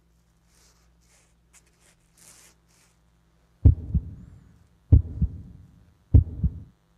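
Heartbeat sound effect: three deep lub-dub double thumps about a second and a quarter apart, over a low steady hum.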